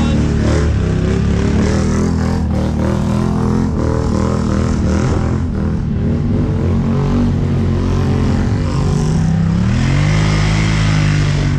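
Ural truck's engine running steadily as the truck crawls through mud. Near the end an engine revs up, rising in pitch and holding at the higher note.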